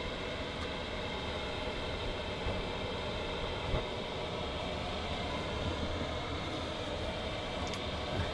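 Chinese diesel air heater running steadily, turned down from full power: an even rushing hum from its blower and burner.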